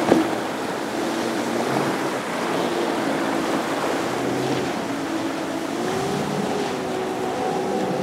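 Outboard-powered center-console boat running through rough water, its steady engine drone over the rush of waves and spray. The engine pitch rises about six seconds in. A short knock sounds right at the start.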